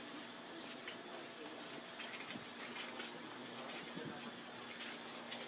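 Steady high-pitched insect chorus, with a few faint short chirps over it.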